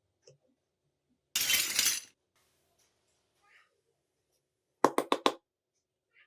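Miniature toy kitchen pieces being handled: a short rustle about a second and a half in, then four quick clinks of the small pieces knocking together near the end.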